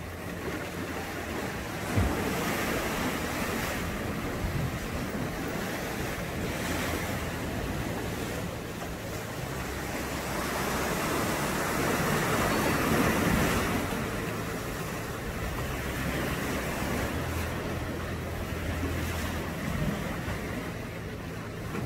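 Sea waves washing and breaking over rocks at the foot of a cliff, a steady rush of surf that swells loudest about halfway through, with wind on the microphone.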